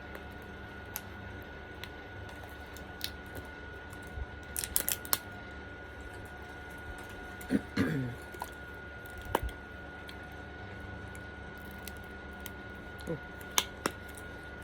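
Scattered small clicks and taps of objects being handled at a table, with a quick cluster about a third of the way in and a few more near the end. Two short murmurs falling in pitch, about halfway and near the end, over a faint steady high whine.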